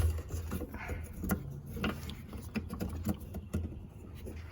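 Scattered light clicks and knocks of a plastic headlight assembly and its bulb sockets being handled, over a low steady hum.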